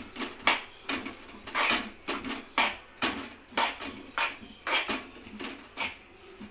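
Spoon scraping and stirring sticky coconut-jaggery modak filling around a metal kadhai, in short strokes about twice a second, working the cardamom powder into one mass.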